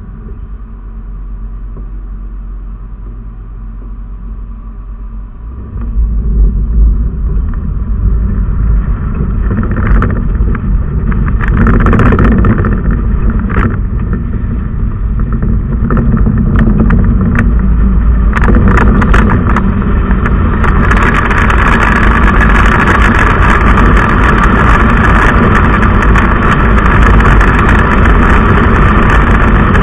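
A car heard from inside: a low, quiet rumble while it waits at a light, then about six seconds in the noise jumps as it pulls away, with a few knocks and rattles. Engine, tyre and wind noise build as it gathers speed, becoming a loud steady rush over the last third.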